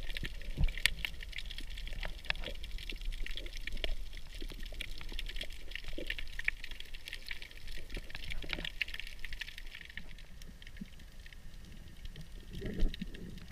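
Underwater sound picked up by a GoPro in its waterproof housing: a steady low rumble of moving water with many scattered sharp clicks and crackles. There is a louder burst near the end.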